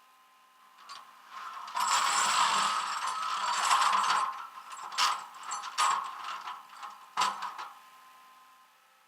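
Metal mechanism clicking and rattling for about two and a half seconds, then a few separate sharp knocks.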